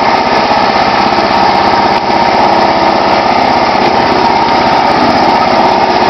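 John Deere LX176 lawn tractor engine running steadily at constant speed.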